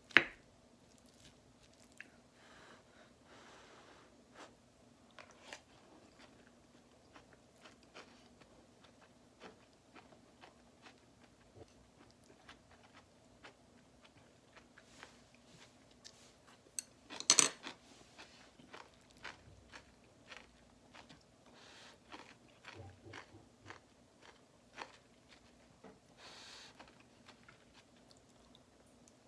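A person eating something crunchy, with faint chewing and crunching and many small clicks. There are two sharp clicks, one at the very start and one about 17 seconds in.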